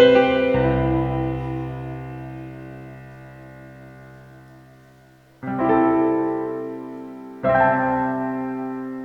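Yamaha PSR-SX900 arranger keyboard playing a piano voice. Three chords are struck, about half a second in, about five and a half seconds in, and near the end. The first is left to ring and fade away for about five seconds.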